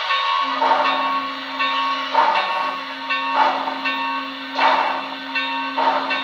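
Steam-locomotive sound from the DCC sound decoder in an HO-scale New York Central 4-6-4 Hudson model: slow exhaust chuffs, about one every second and a quarter, over a steady hiss and steady tones.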